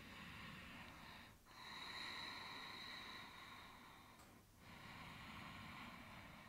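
Slow, even breathing drawn through a constricted throat, Ashtanga-style ujjayi breath, with about three seconds per breath and short pauses between inhale and exhale.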